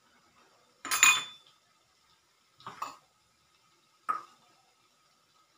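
Metal slotted frying spoon clinking against an iron kadai of frying oil, three short clatters: the loudest about a second in, another just before three seconds, and a sharp single knock just past four seconds.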